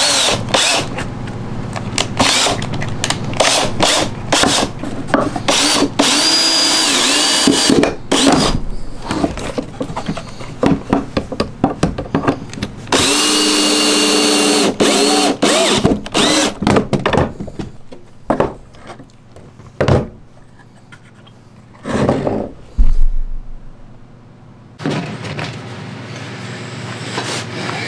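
Power drill driving screws into plywood in short runs, with clicks and knocks of handling between them. Two longer whines, about six and thirteen seconds in, drop in pitch as the drill winds down. Near the middle there is a quieter stretch broken by a few knocks.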